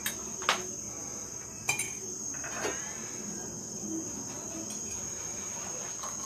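A spoon clinking against a cup a few times in the first seconds as coffee powder is stirred into hot water, over a steady high-pitched whine.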